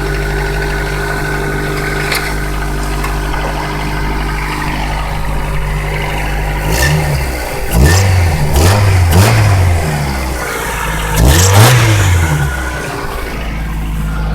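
Engine idling steadily, then revved in four or five short blips around the middle before settling back to idle, with a sharp click at the start of several revs. It is presumably the 'weird noise' under investigation, though nothing says what causes it.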